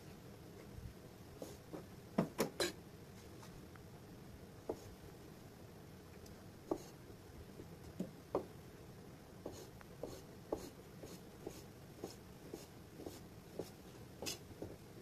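Kitchen knife slicing boiled bamboo shoot on a cutting board. Scattered knocks come first, with three loud ones in quick succession a little over two seconds in. In the last third the cuts fall steadily, about two a second.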